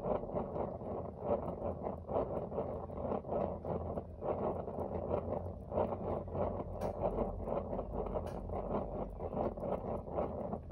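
Sengoku Aladdin GKP-P248N kerosene heater's burner flame burning with a steady, fluttering rush, the combustion sound it makes while it heats up after lighting.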